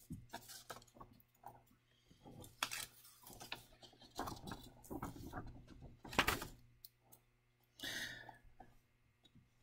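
Faint scattered clicks, knocks and rustling in a small room, with a short hiss near the end.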